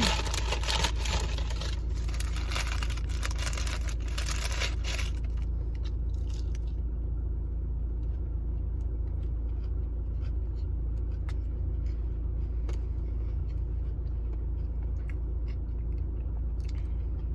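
Steady low rumble of a car idling, heard inside the cabin. Paper food packaging crinkles and rustles for the first five seconds or so, then only faint scattered clicks.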